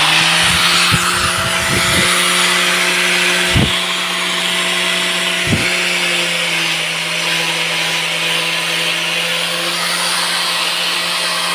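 Angle grinder spinning up, then running steadily with a loud hiss, grinding metal, with a few brief knocks in the first half.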